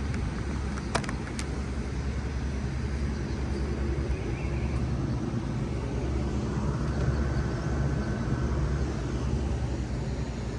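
2006 Bard 3-ton wall-hung heat pump running in cooling mode: a steady low hum of compressor and fan, with a couple of short clicks about a second in.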